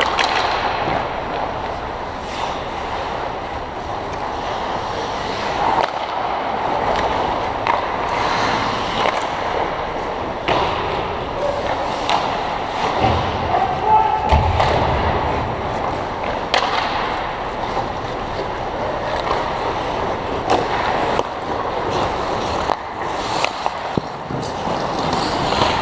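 Ice hockey play close to the net: skate blades scraping and carving the ice, with frequent sharp clacks of sticks and puck hits.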